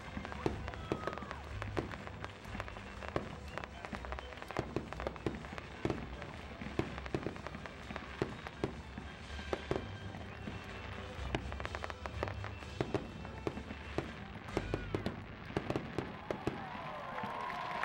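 Aerial fireworks going off in quick succession: many sharp bangs and crackles over deeper low booms.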